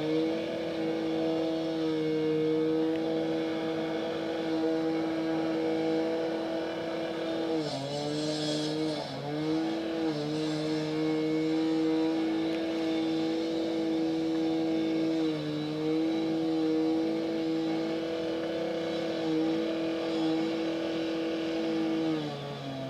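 An engine of road-works machinery running at a steady high speed, with a steady hum. Its pitch dips briefly a few times and then falls at the very end.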